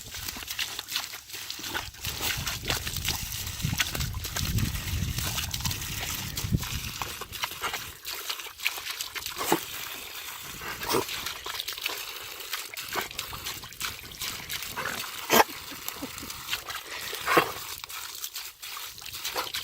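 Garden hose spraying water in a steady hiss and splashing, with dogs giving several short loud sounds, most of them in the second half.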